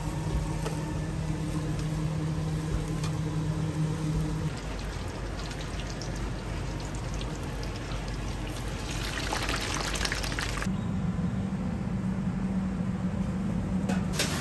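A steaming dark sauce poured in a stream into a foil-lined pot, then pork lard cubes frying and sizzling in bubbling oil. A steady hum runs under the first few seconds and again near the end.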